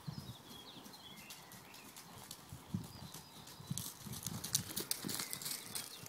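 A pony's hooves thudding softly on a cushioned arena surface at trot, the footfalls getting louder as it passes close about halfway through, with light clicks mixed in.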